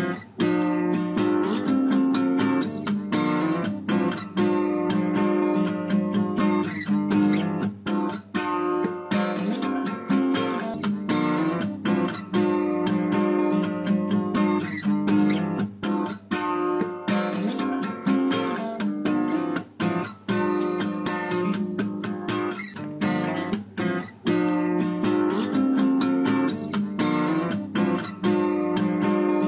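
Instrumental music led by a strummed acoustic guitar in a steady rhythm.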